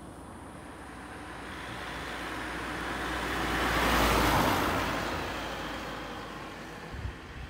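A road vehicle passing by: its noise swells to a peak about four seconds in, then fades away, with a couple of short low thumps near the end.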